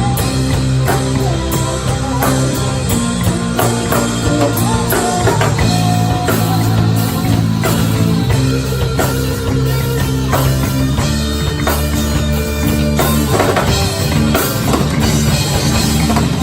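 Rock band playing live: drum kit and guitar over a steady bass line.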